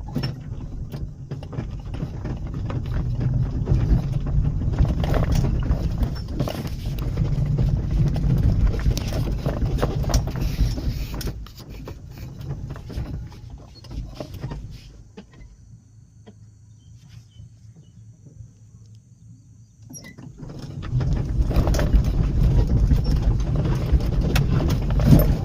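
Auto-rickshaw running with a steady low rumble and constant small rattles and knocks, as on a rough road; it goes much quieter for about five seconds past the middle, then the rumble and rattling come back.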